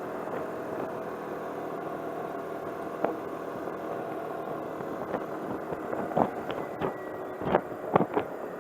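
Car driving slowly, with a steady hum of engine and road noise, and several short sharp knocks: one about three seconds in and a cluster between six and eight seconds.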